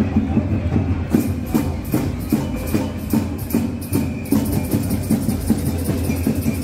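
Music with drums keeping a steady beat, about two to three strokes a second. A bright, hissing high percussion joins about a second in.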